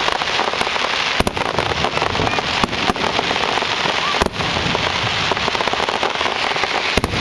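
Aerial fireworks bursting overhead: a dense, continuous crackling, broken by a few sharper bangs about a second in, near three seconds, a little past four seconds, and near the end.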